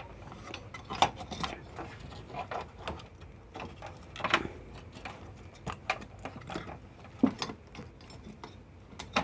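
Irregular clicks, taps and light knocks of a circuit board and its wire connectors being handled and seated inside a metal inverter case, with a few sharper knocks among them.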